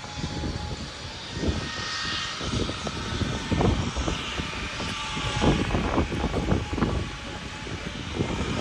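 Jet aircraft engine rumble with a faint steady whine, over wind gusts buffeting the microphone.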